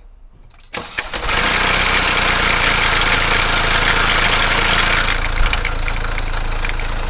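Mercedes OM651 four-cylinder diesel cold-starting: a brief crank, then the engine catches with a very loud rattle for about four seconds before settling to a quieter, steady idle. The start-up rattle is the sign of a loose timing chain.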